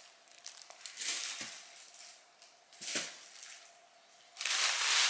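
Plastic grocery bags and meat packaging rustling and crinkling as they are handled, in several bursts, the longest and loudest near the end. A couple of light knocks come as packages are set down.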